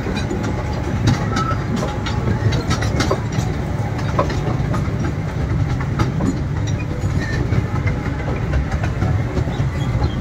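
Amusement-park toy train running on its track, heard from aboard: a steady low rumble with frequent irregular clicks and rattles from the wheels and carriage.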